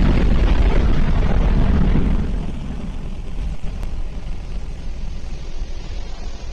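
Firefly Alpha rocket's first stage, four Reaver kerosene/liquid-oxygen engines, firing in the first seconds after liftoff: a loud, deep rumble that drops in level about two seconds in and carries on more softly.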